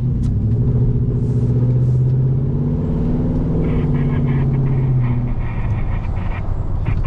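Nissan pickup truck's engine heard from inside the cab as it pulls away and accelerates: a steady engine note that rises a little in pitch, then eases off about five seconds in.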